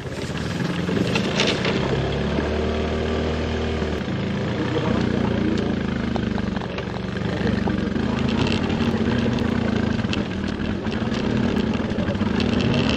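Off-road vehicle engine running on a mountain trail, its pitch rising and falling as the revs change, with scattered clicks and knocks over it.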